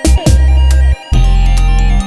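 Loud electronic background music with a heavy bass line and sharp drum hits. The bass drops out briefly about a second in.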